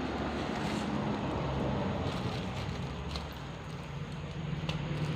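A motor vehicle engine running with a steady low hum that dips slightly, then grows louder near the end.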